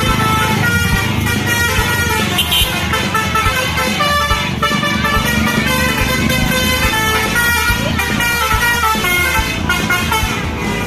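Bus 'telolet basuri' musical air horn playing a tune of quickly changing notes, with a steady low pulse underneath.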